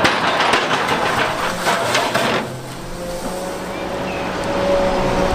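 Large tracked excavator with a hydraulic rock grab working armour stone: repeated knocks and clatter of rock for the first two seconds or so, then the machine's steadier running noise with a faint whine.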